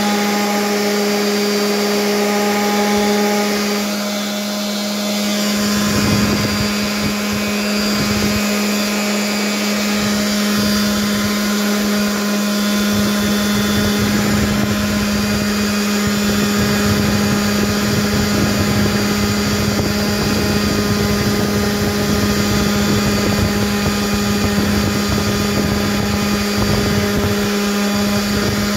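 DeWalt random orbital sander running with a steady motor hum while sanding a wooden box piece. A rougher, grinding low noise joins the hum about six seconds in and stays.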